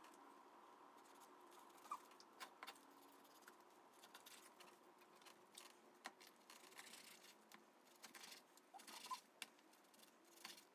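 Near silence with faint knife work: a knife slicing pork spare ribs apart between the bones, with scattered light clicks and scrapes of the blade on a wooden cutting board, over a faint steady room hum.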